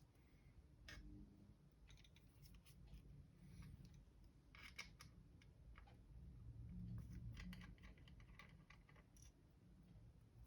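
Faint scattered clicks and short scrapes of small tools and parts being handled during a laptop teardown, over a low steady room hum.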